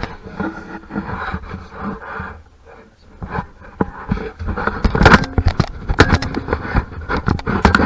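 Tools and metal engine parts scraping, clicking and knocking irregularly, busier and louder in the second half.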